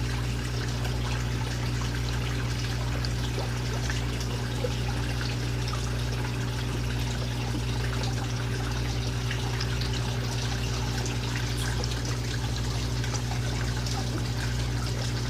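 Aquarium water trickling and splashing steadily, as from a filter outflow, over a steady low hum.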